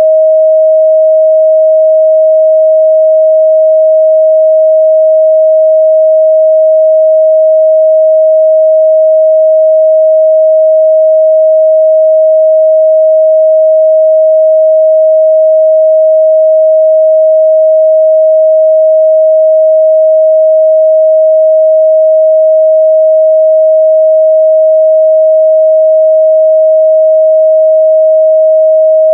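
A steady pure sine-wave test tone at 631 Hz, held at one pitch and level throughout, as used to check the midrange response of speakers and headphones.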